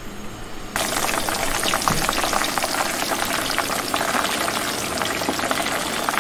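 Chicken wings sizzling in hot oil for their second, high-temperature fry: a dense crackling sizzle that starts suddenly about a second in as the wings go into the oil, then holds steady.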